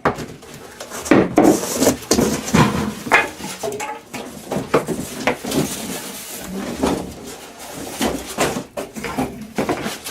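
Handling noise from unpacking a heavy tool box: irregular knocks and clatters with bits of rustling as it and its packaging are moved about.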